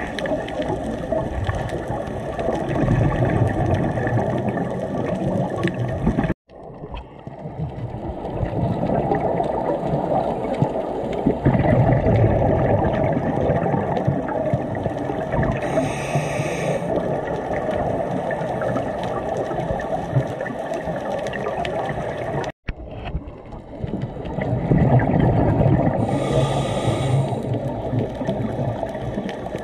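Underwater scuba breathing: a regulator's hiss on the inhale and the rumbling gurgle of exhaled bubbles, swelling and easing in slow cycles over steady water noise. The sound cuts out abruptly twice, about six seconds in and again about twenty-two seconds in.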